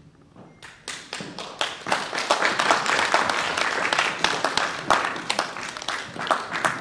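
Audience applauding: a few scattered claps about a second in swell quickly into full, dense applause, which begins to thin out near the end.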